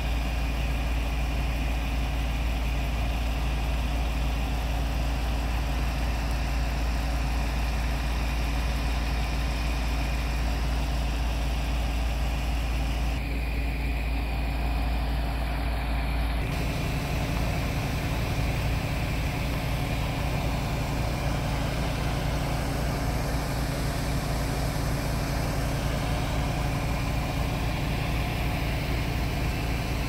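Fire trucks' diesel engines idling steadily. The low drone shifts in character a little past halfway through.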